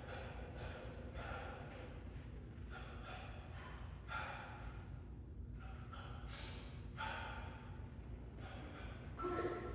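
Hard, noisy breaths pushed out through the mouth in short irregular bursts, about one every half second to a second: a boxer breathing out with his punches while shadow boxing at full effort.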